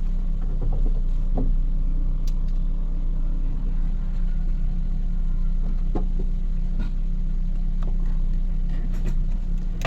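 Car engine idling steadily and evenly, with no misfire shake now that a faulty ignition coil has been replaced.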